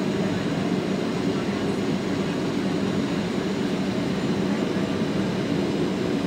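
Steady cabin noise inside a Boeing 737-800 on approach: the CFM56 jet engines and the rush of air past the fuselage make an even, low drone that does not change.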